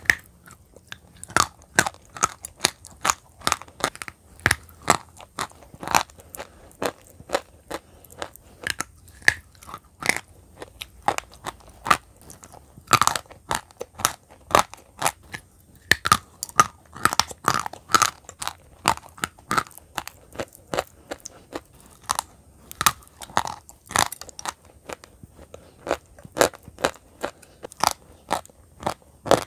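A person biting and chewing pieces of white chalk: dry, sharp crunches, often several a second, with a few short pauses between bites.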